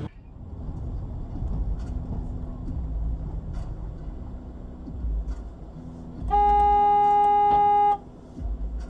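Car interior road and engine rumble while driving, then a car horn blown in one steady blast of nearly two seconds, starting about six seconds in and cutting off sharply.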